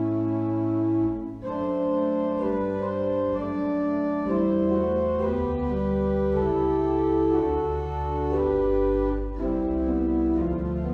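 Organ playing a slow hymn tune in long held chords. The chords change every few seconds, with a brief break about a second and a half in and another near the end.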